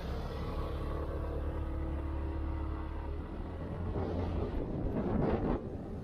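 Motorcycle engine running, heard from on board the bike, a steady low hum that turns rougher and noisier with wind rush from about three seconds in, loudest near the end as the bike rides on.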